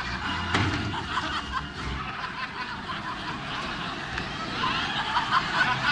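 Studio audience chuckling and murmuring, with a single sharp knock about half a second in and stage music dying away by about two seconds.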